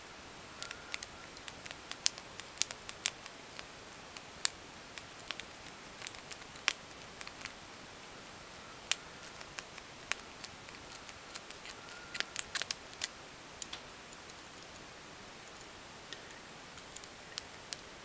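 Lock pick and tension wrench clicking and scraping inside a Brinks padlock's keyway as its pins are picked: irregular sharp metallic clicks, coming in quick runs about two seconds in and again about twelve seconds in.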